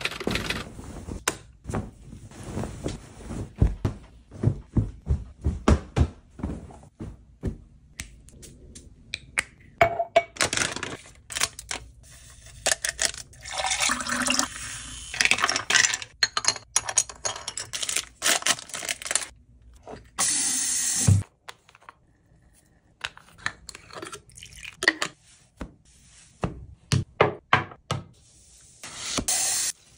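A run of close-up handling sounds: many separate clicks and taps of objects being moved and set down, with water pouring into a glass partway through.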